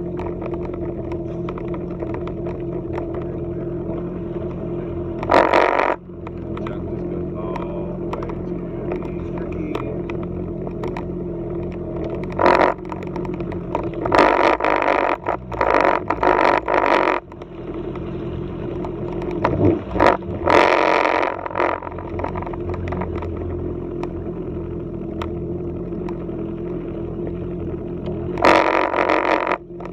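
Yamaha WaveRunner personal watercraft engine running at low speed, a steady hum. Several brief louder bursts break over it, the longest cluster near the middle.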